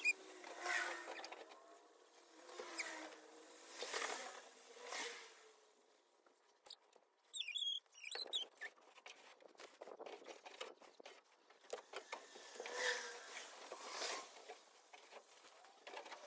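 Old fibre headliner padding being ripped and scraped off a 1989 Toyota van's bare metal roof by a gloved hand: repeated short rustling tears, with a lull of a few seconds in the middle.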